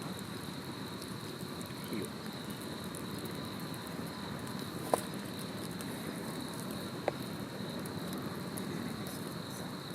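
Wood campfire burning with a steady low crackle and two sharp pops, about five and seven seconds in. A steady high insect trill runs underneath.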